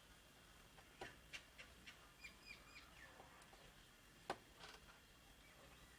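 Faint small-bird chirps, short hooked notes repeated several times in a row, with a few light clicks, the sharpest about four seconds in, over near silence.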